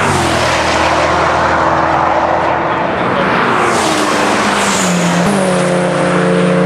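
Cars running at speed on a road-racing circuit, heard from trackside: engine notes that hold, drop in pitch as the drivers lift or shift, and a stronger engine note coming in about five seconds in, over a loud steady rush of noise.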